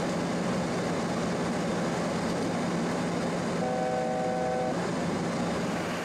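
Steady rush of airflow and hum on the flight deck of a Boeing 737-800 in descent. About three and a half seconds in, a short electronic tone of several notes at once sounds for about a second.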